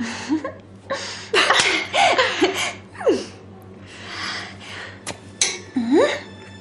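A woman's breathy giggles and exclamations without words: short puffs of breath, a falling vocal swoop about three seconds in and a dipping-then-rising one near the end.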